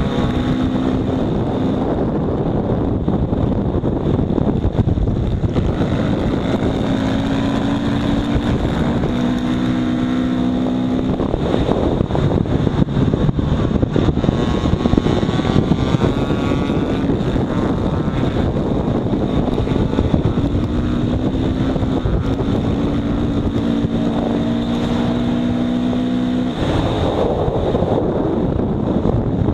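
Dirt bike engine running hard at speed, its pitch falling as it slows for a bend and rising again as it speeds up, under heavy wind noise on the microphone.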